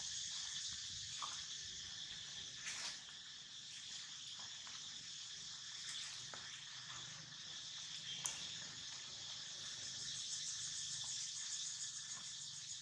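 Steady high-pitched insect chorus, a continuous drone, with a few faint short clicks and rustles, the sharpest about eight seconds in.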